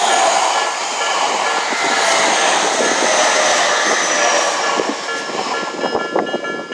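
Electric commuter train passing close by at a level crossing: a steady rumble of wheels and cars going by, with a high whine slowly falling in pitch.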